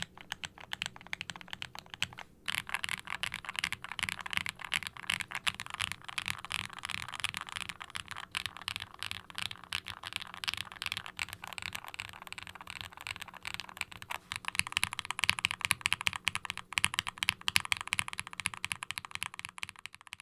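Fast, continuous typing on a KBDfans Tofu60 60% mechanical keyboard with custom Gateron 'Phantom' linear frankenswitches (UHMWPE stems, nylon bottom and polycarbonate top housings) on an FR4 plate, foam- and brass-dampened, giving a soft, muted clacky bottom-out on each keystroke. The typing pauses briefly about two seconds in and gets louder from about fourteen seconds in.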